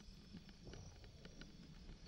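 Bicycle rolling over a bumpy dirt track: a low tyre rumble with scattered light ticks and rattles.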